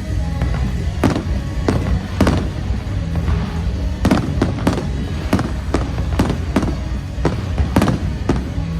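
Fireworks bursting in quick succession, more than a dozen sharp bangs over about nine seconds, with music playing underneath.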